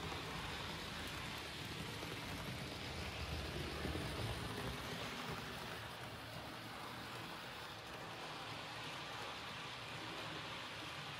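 Rivarossi HO-scale model E 444 electric locomotive and its TEE coaches running on the track: a steady whirring rumble of the motor and wheels rolling over the rails, a little louder about four seconds in.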